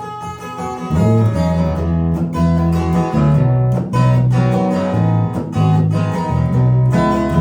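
A band playing an instrumental passage of an indie-folk song, led by strummed acoustic guitar; heavy low notes come in about a second in and the music gets louder.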